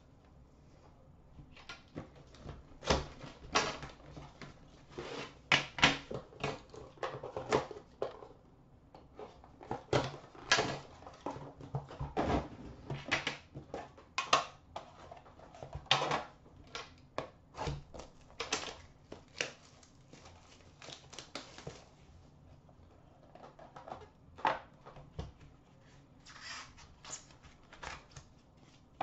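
Hands unboxing a trading-card tin: irregular clicks, taps and rustles of cardboard and tin being slid out, opened and set down on a glass counter, with cards handled near the end.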